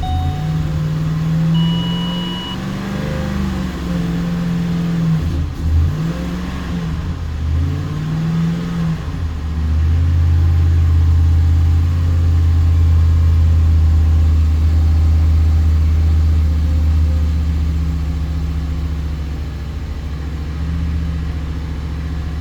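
Ford 5.4L Triton V8 running, its engine speed rising and falling several times in the first half, then held steadier and louder. A short beep sounds about two seconds in.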